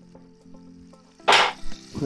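Background music of steady sustained chords, with a short loud rush of noise about a second and a quarter in.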